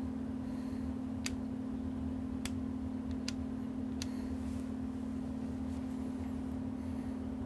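A steady low hum with four short, sharp clicks spaced unevenly through the first half.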